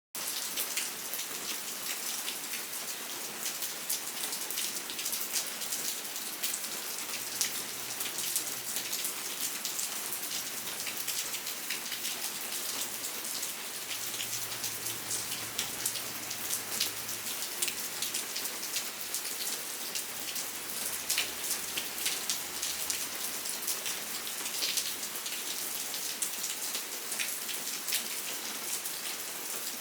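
Steady rain falling on a surface, a constant hiss with a dense patter of individual drops.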